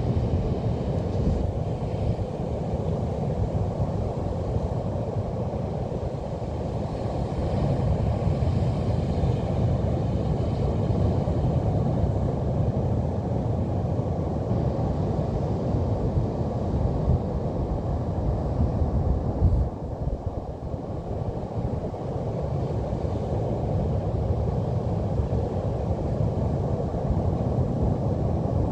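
Steady low rumble of Pacific Ocean surf and wind buffeting the microphone, rising and falling without pause. A single bump is heard about two-thirds of the way through.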